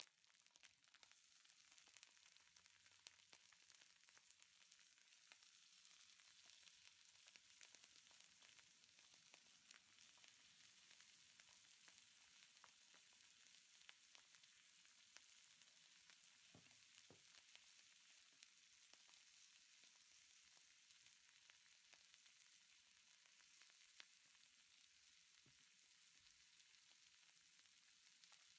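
Hot sizzling plate of fried chicken wings and rice, with butter melting on the metal, giving a faint, steady sizzle with scattered small pops and crackles.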